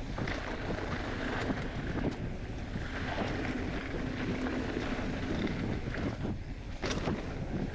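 Wind rushing over a camera microphone, with a few sharp knocks and rattles, the clearest about seven seconds in.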